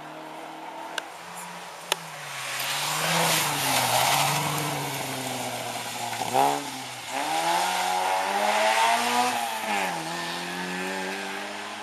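Historic rally car's engine revving hard through a corner, its pitch rising and falling repeatedly. It is loudest with a quick drop and rise about six and a half seconds in, then climbs again as the car pulls away and eases off near the end. Two sharp clicks come in the first two seconds.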